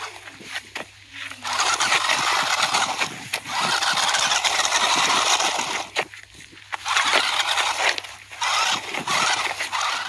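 Battery-powered toy remote-control monster truck driving over dirt: its electric motor and gears whir in bursts with short pauses, and the tyres crunch over soil and pebbles.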